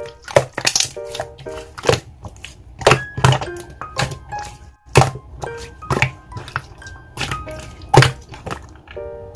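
Background music: a light keyboard tune over sharp, clicking beats about once a second.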